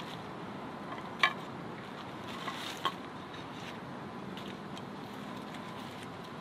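Hands handling a wooden stick and a knife over leaf litter: a sharp wooden knock about a second in, two lighter knocks a little later and scattered faint ticks, over a steady hiss.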